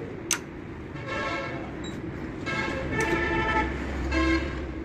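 A single sharp metal clink from a wrench on a bare diesel engine block, followed by vehicle horns honking in three steady tones, the longest about a second, over low traffic rumble.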